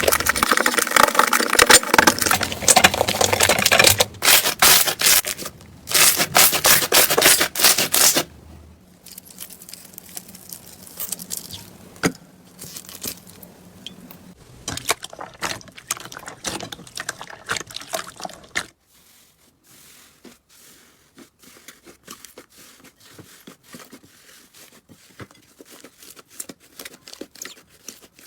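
Slime being handled by hand, with crackling, popping clicks: loud and dense for about the first eight seconds, then quieter and sparser, softer still in the last third.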